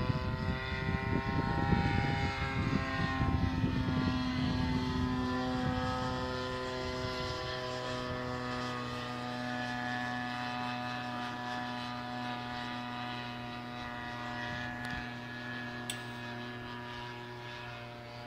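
Model airplane's engine and propeller droning overhead. The pitch falls over the first few seconds, then holds steady while the sound slowly fades as the plane flies off. A gusty low rumble lies underneath at first.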